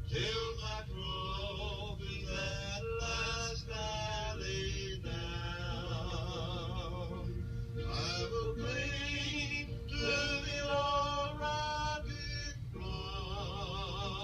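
Unaccompanied singing in slow phrases of long, wavering held notes, over a steady low hum.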